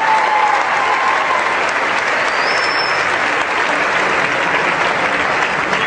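Steady applause, dense and unbroken, with a brief faint high tone about halfway.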